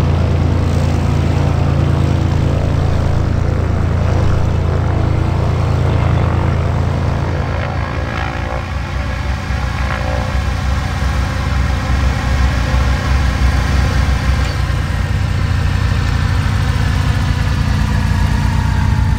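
GippsAero GA8 Airvan's single piston engine and propeller running at taxi power, a steady low drone. The sound shifts briefly about eight seconds in, then carries on steady.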